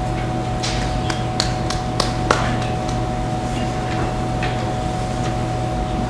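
Steady electrical hum of room tone with a scattering of short clicks, two of them sharper about two seconds in, as a laptop is worked to close a video and bring up presentation slides.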